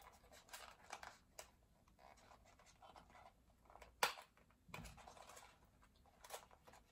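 Faint scratching and rustling of a small cardboard gift box being handled and its contents worked out, with a few light clicks and one sharp tap about four seconds in.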